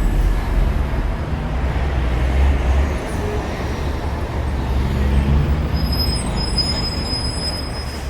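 A low, rumbling vehicle noise that slowly fades, with a thin high whistle near the end.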